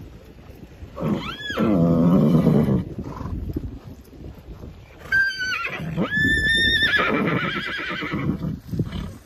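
Horses whinnying twice, about a second in and again from about five seconds in. Each call opens with a high shrill tone and drops into a lower, wavering part.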